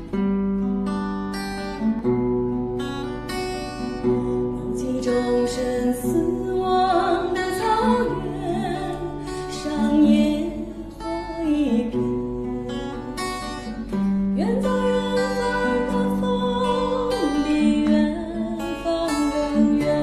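Acoustic guitar strummed in a slow chord progression, the chords changing about every two seconds, with a woman singing along from about six seconds in.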